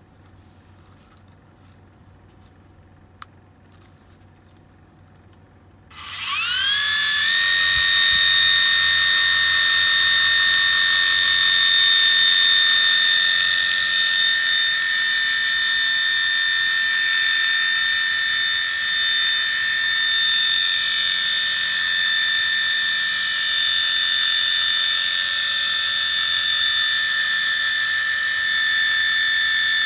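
Flying Minion toy helicopter's small electric motors and twin stacked rotors starting about six seconds in, after a single click, with a quick rising whine, then running on as a steady high-pitched whine.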